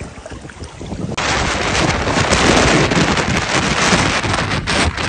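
Hurricane winds buffeting the microphone: a loud, steady rush of wind noise that starts abruptly about a second in. Before it, floodwater gives a quieter low sloshing.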